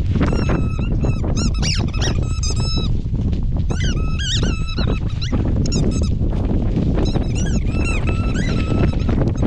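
Large Jindo-mix dog whining in runs of short, high-pitched calls that rise and fall in pitch, in several bouts with short pauses, over a low rumble of wind on the microphone.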